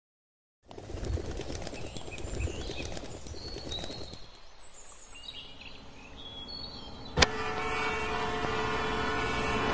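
Birds chirping over a low outdoor rumble. About seven seconds in, a sharp click gives way to a steadier layer of held tones.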